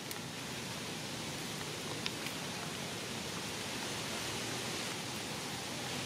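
Steady outdoor background hiss with no distinct source, with two faint clicks about two seconds in.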